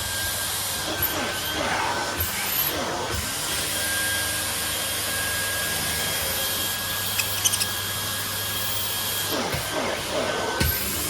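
Vacuum cleaner running steadily, a constant high whine over its motor hum, with a few brief shifts in its sound near the start and near the end.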